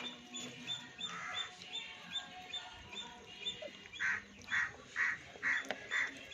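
A crow cawing: a quick series of about six even caws, roughly two a second, in the second half, over a faint high chirping that repeats steadily.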